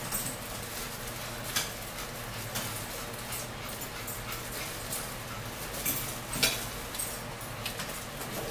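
Close-up eating sounds: chewing and smacking on a bite of turkey sausage, with a few sharp clicks, such as a fork on a plate.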